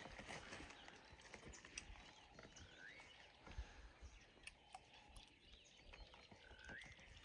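Near silence: faint outdoor ambience with scattered small clicks and a short rising animal call, heard twice about four seconds apart.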